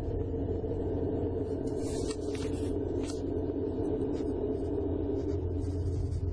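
A steady low rumbling drone, with a few faint short hisses or clicks about two to three seconds in.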